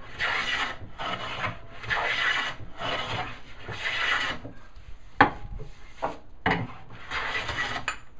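A long hand bench plane is pushed along the edge of a hardwood board clamped in a vise, jointing the edge. There are five shaving strokes, each under a second long. A pause in the middle is broken by a couple of sharp knocks.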